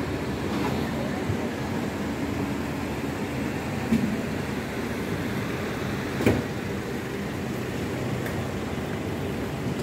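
City street ambience: a steady hum of traffic and vehicles in a narrow lane, with a short sharp knock about six seconds in.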